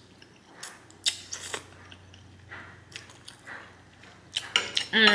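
Close-miked chewing and wet mouth clicks of a person eating spaghetti in meat sauce, with a brief hum that falls in pitch near the end.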